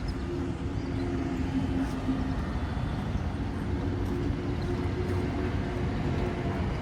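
Steady low rumble of motor-vehicle engine noise, with a steady hum-like tone that holds through most of the stretch.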